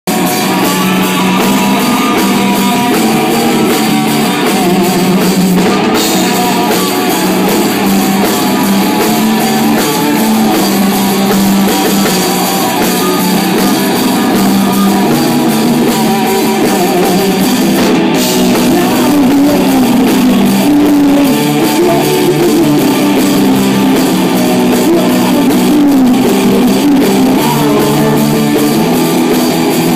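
Live rock band playing loud: electric guitar and drum kit together.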